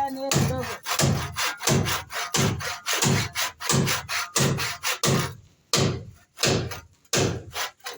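Hand saw cutting through timber in fast, even back-and-forth strokes, about three a second, slowing with short pauses in the last few seconds.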